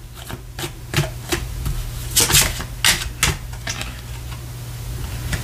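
A deck of tarot cards being shuffled by hand: a run of irregular sharp clicks and card snaps, thicker around two and three seconds in.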